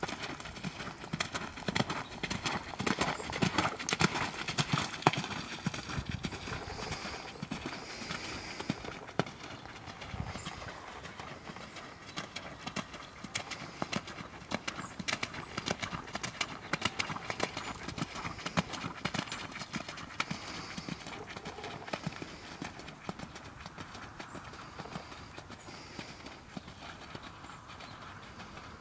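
Hoofbeats of a ridden horse on a wet, muddy sand arena, moving at canter and then trot, loudest in the first several seconds.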